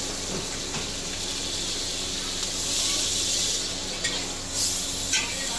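Hot oil sizzling in a wok as eggs go in and fry, the hiss swelling in the middle. A metal spatula clinks and scrapes against the wok a few times near the end.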